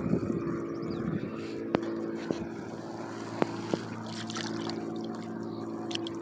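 Steady motor hum, even in pitch, with four brief sharp clicks or taps in the middle.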